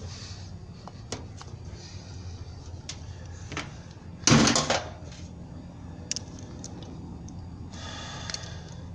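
Scattered clicks and knocks of parts and tools being handled, with one loud clatter lasting about half a second about four seconds in and a brief scrape near the end.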